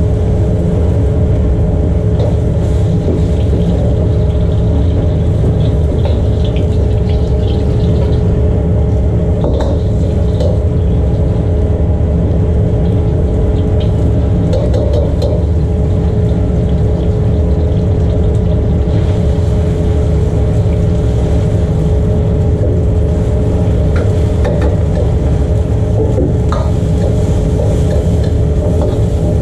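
Steady, loud rumble of restaurant gas wok burners and kitchen extraction, with a constant hum under it. A metal ladle now and then clinks and scrapes against a wok as noodles are stir-fried.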